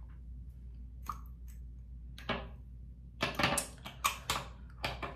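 Skincare bottles and packaging being handled: a string of short clicks and knocks, with several close together in the last two seconds.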